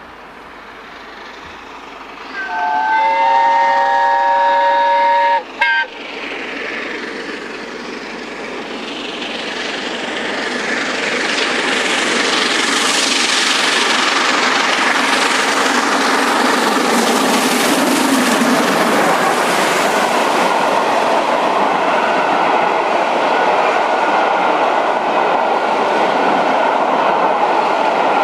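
LNER A1 Pacific steam locomotive 60163 Tornado sounds its whistle for about three seconds, then comes on working hard, its exhaust growing louder as it draws near and passes close by. Its train of coaches then rolls past.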